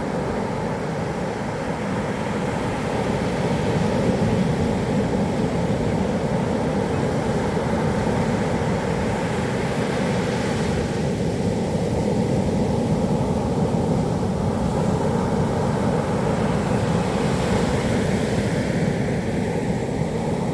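Heavy surf breaking on a beach: a steady rush of waves, with a brighter hiss swelling up about halfway through and again near the end.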